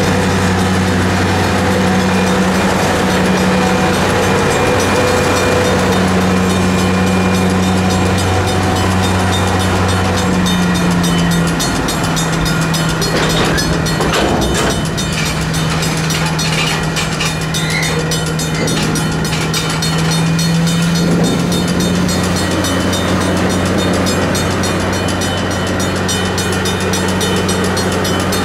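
Diesel locomotive engine running with a steady low drone. Its pitch drops a little about eleven seconds in and rises again about twenty-one seconds in.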